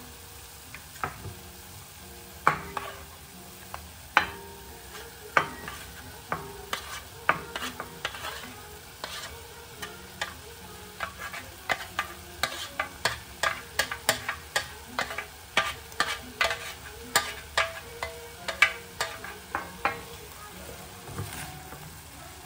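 Food sizzling in a pan while a utensil stirs it, knocking and scraping against the pan in irregular taps that come faster in the second half.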